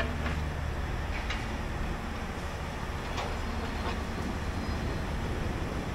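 Large diesel engine of the Caterpillar 6015B demolition excavator running steadily, a low even hum with a few faint clicks.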